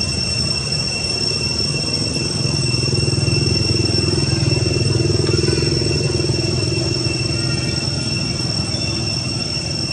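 A motor vehicle's engine running and passing, its low rumble swelling about two to three seconds in and fading again after about seven seconds. A steady high-pitched whine sounds throughout.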